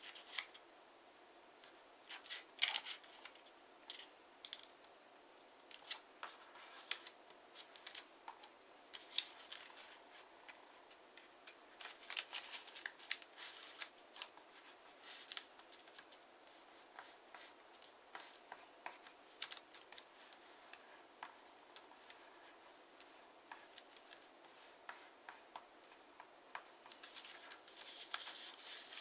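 A 15 cm square of TANT origami paper being folded by hand: irregular crinkles, rustles and short scrapes as flaps are turned and creases pressed flat. The sounds come more thickly around the middle and again near the end.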